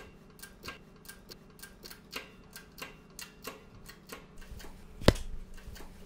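Shop press being worked to push a part onto a crankshaft: a steady run of sharp ticks, about three a second, then one loud sharp knock about five seconds in.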